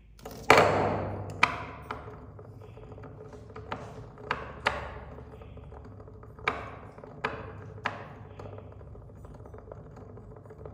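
Dishwasher running with a steady low hum while an iron ball clanks against the inside of the machine in irregular ringing knocks. The first knock, about half a second in, is the loudest.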